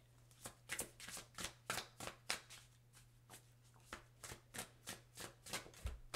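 An oracle card deck being shuffled by hand, the cards snapping against each other in a steady string of short clicks, about three a second.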